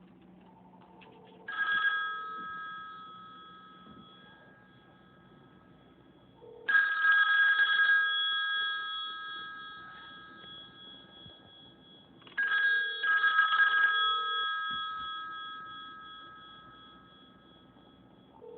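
Rotary telephone bell ringing in three bursts: a short one, then two longer rings, each fading away afterwards. The ringer is being tested with a piece of egg dipper wire held in place of its missing metal part.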